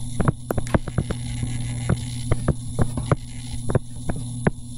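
Stylus tapping on a tablet screen while handwriting, a quick irregular run of small clicks, several a second, over a steady electrical mains hum.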